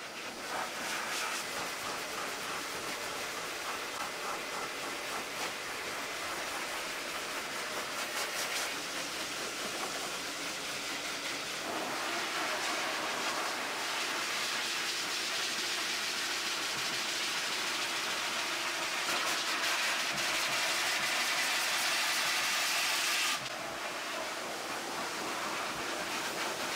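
High-velocity dog grooming dryer blowing air through its hose and nozzle into a thick coat: a steady rushing hiss. The sound grows fuller about halfway through, and the high hiss drops away suddenly near the end.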